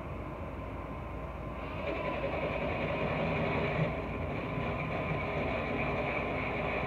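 Cordless drill turning slowly with a carbide glass bit, grinding into a glass whiskey bottle kept wet with water. The grinding grows louder and harsher about two seconds in.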